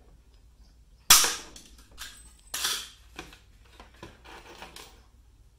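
Hand pop-rivet gun setting a 3/16-inch aluminium rivet: a single sharp, loud snap about a second in as the mandrel breaks off. A second, softer noise follows about a second and a half later, with a few light clicks.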